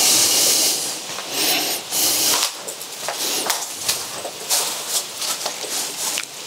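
Footsteps crunching and rustling over dry leaves and broken wood debris on a floor, a run of irregular crackles and clicks, with a loud airy rush in the first half second.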